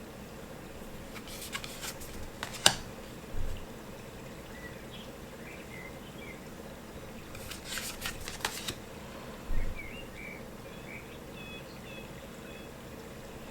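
Tarot cards being handled and flipped: two short clusters of quick card snaps and slides, one about a second in and another around eight seconds, each followed by a soft low thump.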